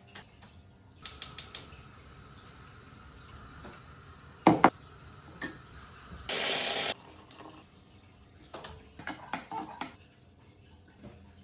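Small handling noises: a quick run of clicks, a single loud knock, a short hiss lasting about half a second, then more scattered clicks.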